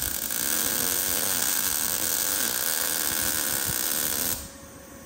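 MIG welding arc crackling steadily as a bead is run on steel, cutting off suddenly about four seconds in when the arc is broken.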